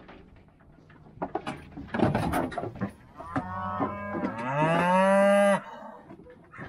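A bred heifer mooing: one long call of about two seconds that rises in pitch, preceded by a few clattering knocks.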